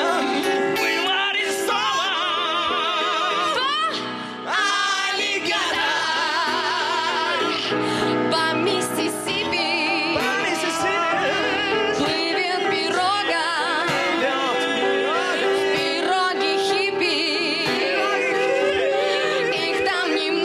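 A song performed live: singing with a wide vibrato over acoustic guitar accompaniment.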